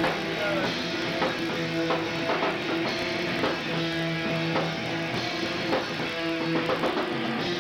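A hardcore punk band playing live: distorted electric guitars holding chords over drums and crashing cymbals.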